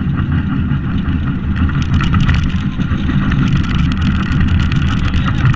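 Unpowered soapbox cart rolling fast downhill on asphalt: a steady low rumble from the wheels and chassis, with many small clicks and rattles.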